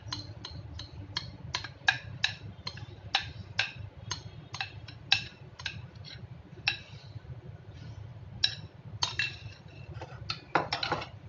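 Spoon clinking and scraping against a glass mixing bowl and a metal tin as thick batter is scraped out: a string of sharp, irregular clicks with a short glassy ring, and a quick cluster of knocks near the end.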